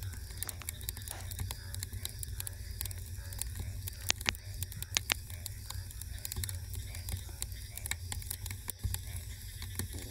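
Wood fire crackling, with many small sharp pops scattered throughout and a few louder ones about four and five seconds in, over a steady low rumble.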